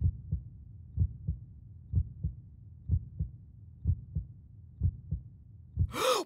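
Heartbeat sound effect: a steady lub-dub of paired low thumps, about one beat a second, laid in for suspense. It ends with a short brighter sound that cuts off abruptly.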